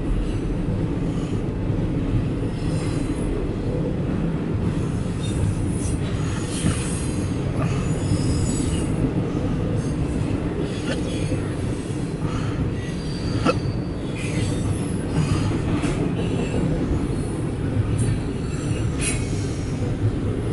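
CSX double-stack intermodal freight train rolling past close by: a steady rumble of wheels on rail, with occasional brief high-pitched wheel squeals and clanks.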